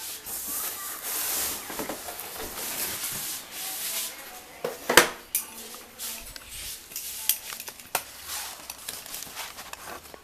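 Rustling and scraping as a cardboard TV box and its plastic wrapping are handled, with a sharp knock about five seconds in and a lighter one near eight seconds.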